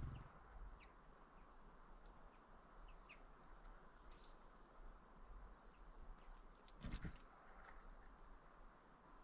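Small birds chirping faintly now and then, with a brief thump about seven seconds in.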